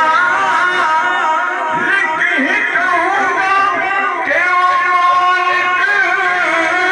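A man singing a naat (Urdu devotional poem praising the Prophet) unaccompanied into a microphone, with long held notes that waver and slide in pitch.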